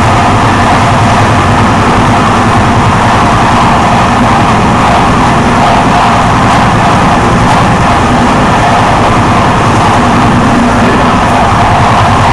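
Train running along the track at speed, heard from the driver's cab: a loud, steady running noise with a constant mid-pitched hum over a low rumble.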